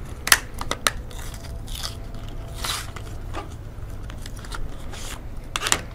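Packaging of an M.2 NVMe SSD being pried and peeled open by hand. Crackles and sharp snaps come near the start and again near the end, with a longer crinkling rustle about halfway through.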